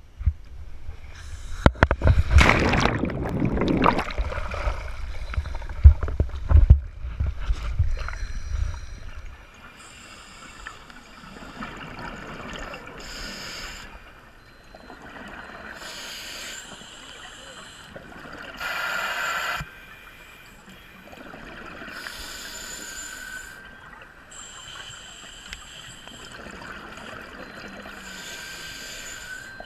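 Loud rumbling and knocks for about the first nine seconds, then a scuba diver breathing underwater through a regulator: a hiss of bubbles from each exhalation every few seconds, the loudest near the middle, over a faint steady tone.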